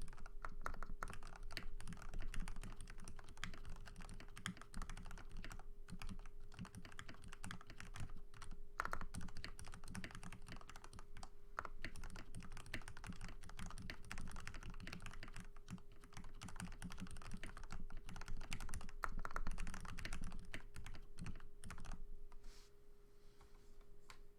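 Typing on a Tada68 mechanical keyboard with lubed Gateron White linear switches, lubed and clipped plate-mount stabilizers and PBT keycaps: a fast, irregular run of keystrokes that stops about two seconds before the end.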